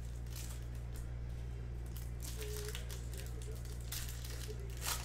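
Foil wrapper of a Topps Chrome baseball card pack crinkling as it is handled and pulled open by hand, in short irregular rustles with the loudest crinkle near the end, over a steady low hum.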